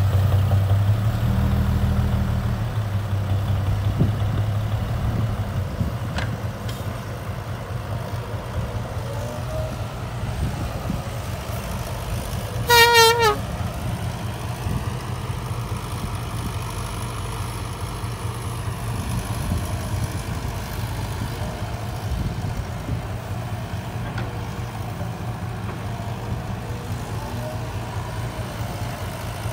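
Heavy diesel engines of a dump truck and a crawler excavator running steadily, louder in the first couple of seconds. About 13 seconds in comes one short horn blast with a wavering pitch, under a second long.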